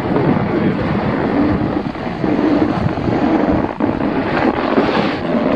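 Wind rushing over the camera's microphone as a skier moves down the piste, a steady loud rumble and hiss with one light knock a little past the middle.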